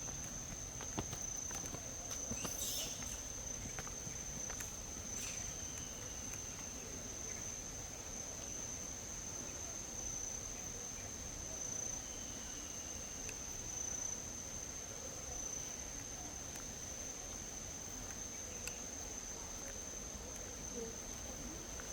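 Forest insects keep up a steady, high-pitched buzz throughout, with a few faint short falling whistles and a couple of light clicks.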